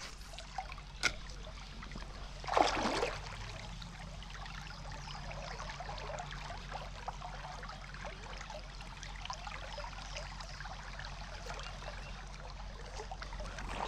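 Creek water trickling and flowing steadily, with a sharp click about a second in and a brief louder rush of noise about two and a half seconds in.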